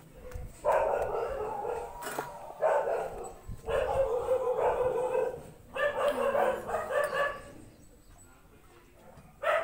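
A dog barking and howling in four runs of a second or two each, with short pauses between, then quiet for a couple of seconds before it starts again near the end.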